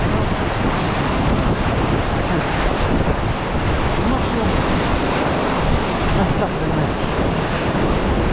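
Rushing whitewater of a class 3 rapid as a paddle raft runs through it, a loud steady roar of water mixed with wind buffeting the microphone.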